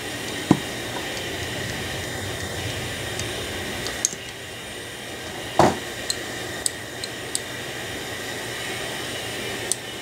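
Light clicks and taps of small distributor parts being handled on a workbench, with one louder knock about halfway through, over a steady fan-like hum.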